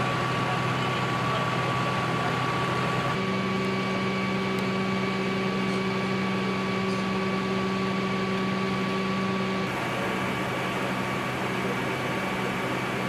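Idling vehicle engine, a steady hum with a few constant tones; the mix of tones shifts about three seconds in and again near ten seconds.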